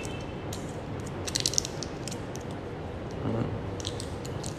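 Aluminium foil crinkling in quick light crackles as a foil strip is twisted around a lock of hair for a perm curl, thickest about a second and a half in.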